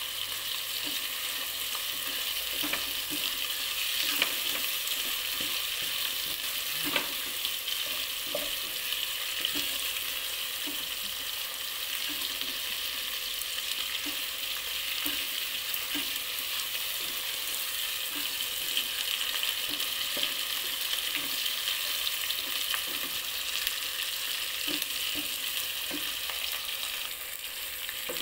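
Shrimp and garlic sizzling in hot oil in an enamel-coated pot, with a steady frying hiss. A plastic spatula stirs through the pan, scraping and knocking lightly against the pot about once a second.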